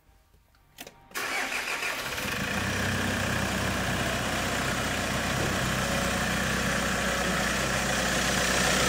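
Kia Sorento D4CB 2.5-litre four-cylinder common-rail turbodiesel starting about a second in and settling into a steady idle. This is the first start after a new cylinder head was fitted.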